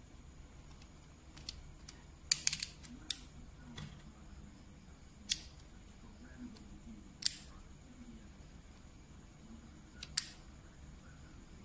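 Sharp plastic clicks from a W5 Judgement Joker Beyblade top being put together and handled in the hands, its parts snapping and twisting into lock. A quick run of clicks comes a little past two seconds in, then single clicks every second or two.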